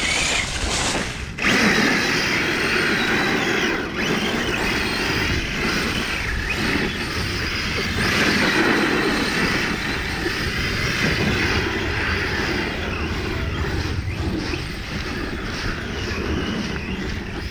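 Radio-controlled monster truck driving through fallen leaves: the motor and drivetrain whine, rising and falling with the throttle, over the crunch and rustle of leaves churned up by the tyres.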